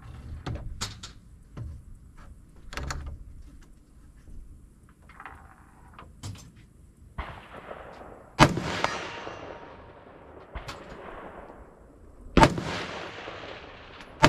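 Three loud shots from a 10.5-inch AR-15 pistol in 5.56 mm, about four seconds apart, the last one at the very end. Each crack is followed by a long fading echo across the open range. Several fainter sharp cracks come in between.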